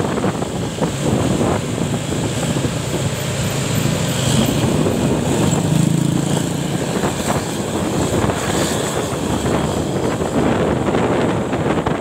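Engine and road noise from riding a motorcycle close behind a bus in traffic, with wind buffeting the microphone; a low engine hum is clearer in the first half.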